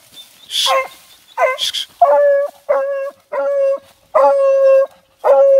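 Hounds baying at the foot of a tree where their quarry is holed up: a run of about seven drawn-out bays, one held for most of a second about four seconds in.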